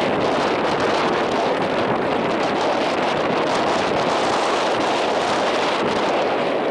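Steady rushing noise of wind and sea water at the shore.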